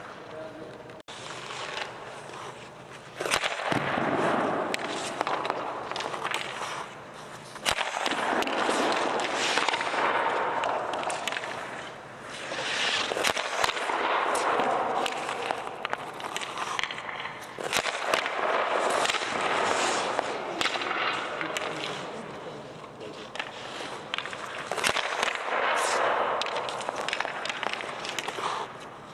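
Ice hockey shooting drill on a rink: skate blades carving and scraping the ice in repeated swells, with many sharp cracks of sticks striking pucks and pucks hitting the ice and the goalie.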